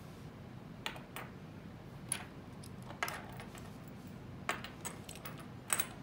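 Small metal fiber-optic connector adapters clicking and clinking as they are handled and fitted to an OTDR's ports: a scattered series of short, light clicks, the sharpest near the end.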